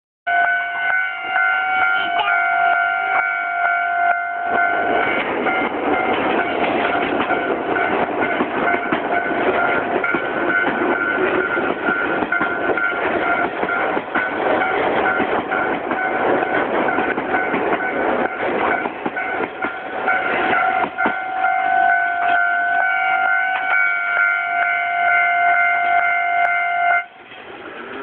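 Japanese level-crossing warning bell ringing steadily, buried for most of the middle under the loud rolling noise of a train passing close by on the rails. Near the end the bell cuts off suddenly, the sign that the train has cleared and the barriers are lifting.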